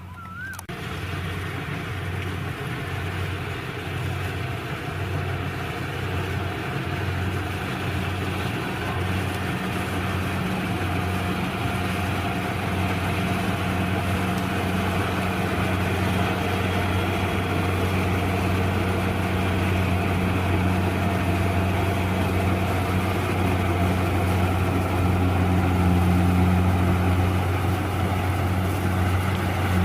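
Rice combine harvester's engine running steadily, a low drone that cuts in abruptly about half a second in and grows slowly louder.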